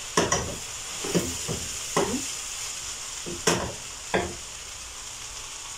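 A spoon scraping and knocking against a nonstick pot while stirring rice with vegetables, about five strokes in the first four and a half seconds, the loudest about three and a half seconds in, over a steady faint hiss.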